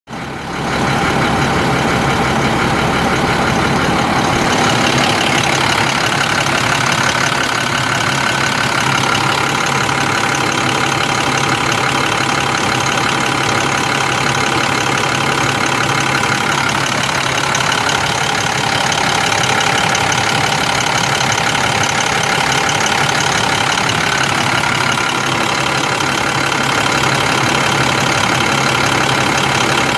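International DT466 7.6-litre inline-six diesel engine of a 2001 International 4900 dump truck idling steadily.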